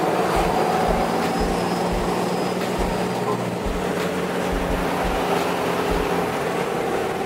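Cummins turbodiesel with compound turbos running as the truck drives, heard from inside the cab: a steady drone under a low, uneven throbbing.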